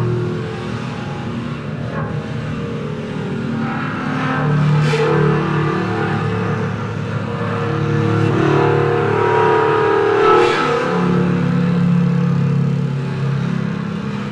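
Ambient drone music of long, overlapping held notes on an effected electric bass, the notes shifting every second or two. Two brief swells of hiss rise about five and ten seconds in.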